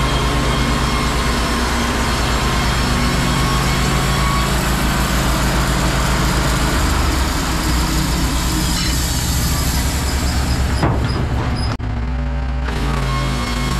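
Wood-Mizer LT15 Wide portable band sawmill running, its band blade sawing lengthwise through a large log with a steady engine drone under a dense cutting noise. A little before the end the cutting noise drops away as the blade leaves the cut, and the mill runs on.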